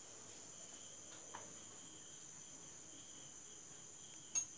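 Steady high-pitched chirring of crickets in the background, with one sharp tap near the end.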